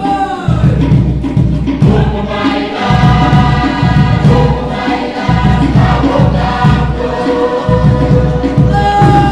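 Group of voices singing a Pukapukan dance song in chorus, over a fast, steady drumbeat.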